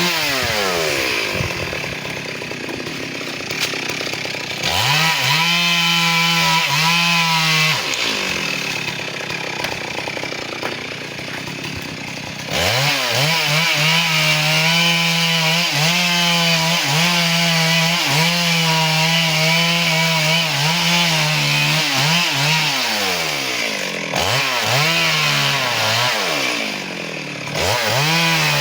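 Two-stroke chainsaw cutting teak logs, its engine climbing to full speed and dropping back several times.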